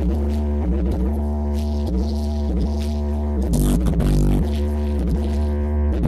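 Bass-heavy music with a deep, droning bass line whose notes change every half second or so.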